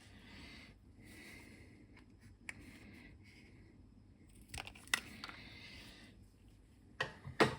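Scattered small clicks and rustles from hands working a cable and heat-shrink tubing on a bench, with a few sharper snaps about five seconds in and a louder pair near the end.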